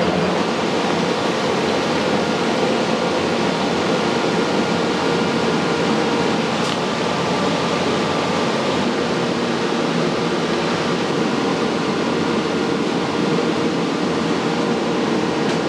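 Steady rushing roar of a commercial kitchen's wok burner and extractor hood, with a faint metallic clink about six and a half seconds in.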